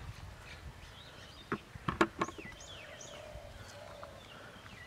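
Several sharp knocks in quick succession about one and a half to two and a half seconds in, over birds giving short, falling chirps.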